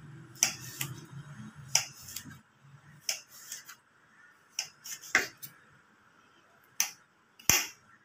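Kitchen knife slicing raw mango into strips, the blade knocking sharply on the cutting surface about ten times at an uneven pace.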